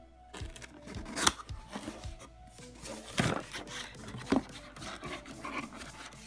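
Background music over irregular clicks, scrapes and rustling from mechanical keyboard parts being handled during assembly, with a few sharper clicks standing out.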